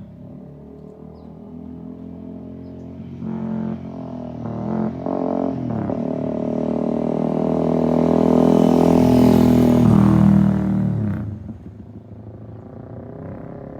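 Honda Rebel motorcycle with a Vance & Hines slip-on exhaust accelerating, loud, its note climbing with a few brief breaks like gear changes, then falling away sharply about eleven seconds in as the throttle is closed.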